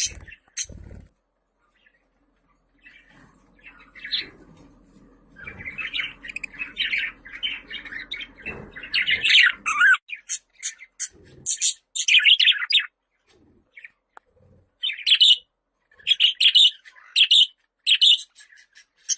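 Budgerigar warbling and chirping. After a quiet gap near the start comes a few seconds of rapid, continuous warbled chatter, followed by separate sharp chirps spaced about a second apart.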